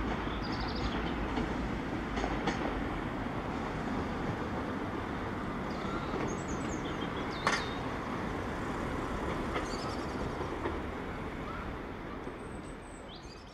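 Two coupled Class 150 Sprinter diesel multiple units moving away, their diesel engines and wheels making a steady rumble that fades as the train recedes. There is a single sharp click about seven seconds in.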